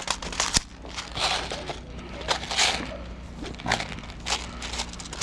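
Footsteps crunching on a gritty floor, an irregular string of short crunches with a few sharp clicks.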